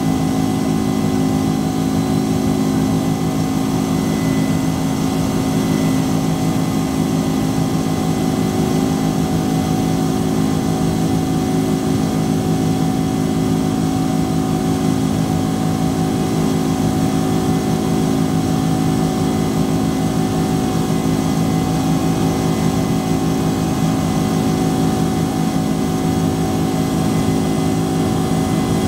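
Boeing 767-300ER jet engines running steadily, heard inside the passenger cabin beside the wing: an even rushing drone with a constant low hum of steady tones.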